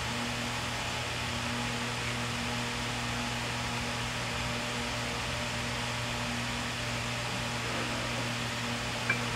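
Steady hum and hiss of a running fan, with one short click near the end.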